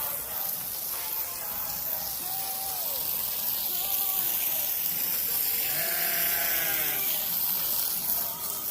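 Farm livestock bleating: several short calls that rise and fall in pitch, then a longer, louder bleat about six seconds in, over a steady high hiss.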